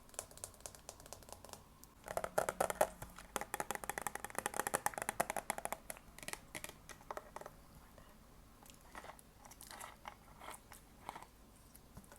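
Close-miked ASMR sounds: crisp, quick clicks, a dense rapid run from about two seconds in until about six seconds, then sparser scattered clicks.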